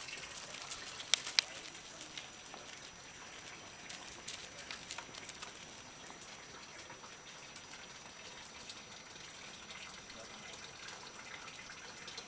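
Steady rush of running water, with scattered crunches and clicks; two sharp clicks about a second in are the loudest.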